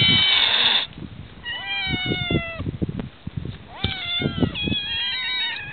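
Several barn cats meowing, with long, drawn-out meows overlapping one another; the loudest stretch is in the first second.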